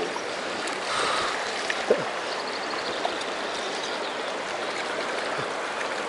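Shallow, fast mountain stream running over gravel: a steady rush of flowing water, with a brief knock about two seconds in.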